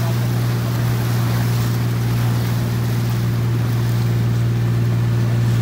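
A boat engine running at a steady pitch, a low even hum, with wind and sea noise over it.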